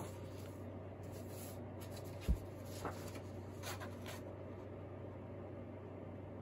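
Sheets of drawing paper being handled and swapped, with soft paper rustles and one dull thump about two seconds in, over a steady low hum.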